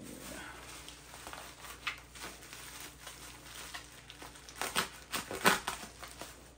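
Bubble wrap crinkling and rustling as a knife slices through it, with a cluster of louder crackles about five seconds in.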